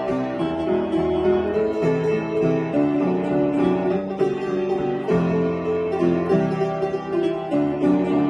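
Upright piano being played, with many notes and chords sounding in a continuous flow.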